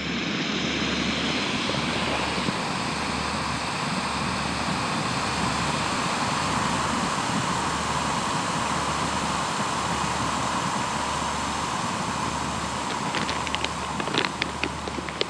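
Jetboil backpacking stove's gas burner running with a steady rushing roar. Near the end, a foil freeze-dried meal pouch crinkles as it is handled.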